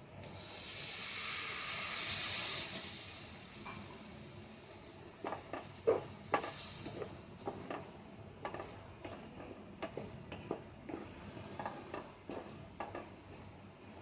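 A little water hits a hot kadhai of fried onion, peas and spices and sizzles for about two and a half seconds. Then a spatula scrapes and taps against the nonstick pan as the mixture is stirred, in scattered short knocks.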